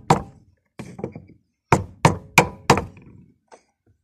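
Hammer blows on a wooden block braced against a fuel pump's retaining ring, knocking the ring round to loosen it. One blow at the start, a few lighter taps about a second in, then four quick blows about a third of a second apart.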